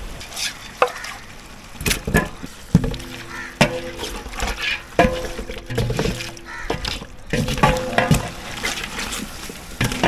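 Wooden paddle stirring raw meat into wet onion-and-spice masala in a large aluminium cooking pot, with repeated knocks and scrapes against the pot and wet stirring noise.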